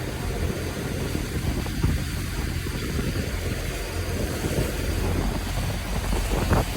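Boat engine running steadily with a low, even hum, with rushing noise over it.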